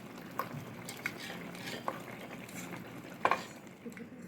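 Cutlery clinking and scraping against a bowl while eating: a few light clinks, with a sharper, louder one about three seconds in.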